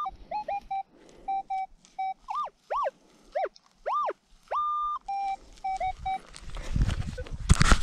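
Minelab Equinox 800 metal detector sounding a target: a run of short beeps and held tones, some rising and falling in pitch, as the coil sweeps back and forth over buried metal. Near the end a louder burst of scraping and knocks takes over.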